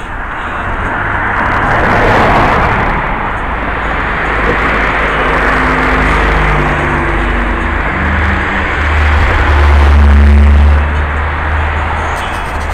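Street traffic noise with cars driving past close by. A wide rush swells about two seconds in, and a deep rumble builds and is loudest about ten seconds in.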